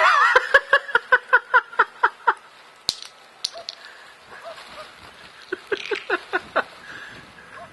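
A person's voice making a quick run of short, pitched yips, about five a second for two seconds, then a second, shorter run near the end, with a single sharp click in between.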